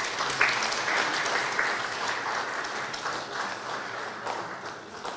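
Audience applauding, swelling about half a second in and slowly fading toward the end.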